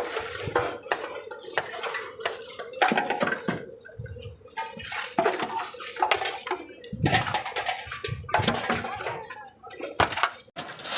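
Irregular clinks and knocks of hard objects being handled and set down, several a second at times, with a faint steady hum in the first few seconds.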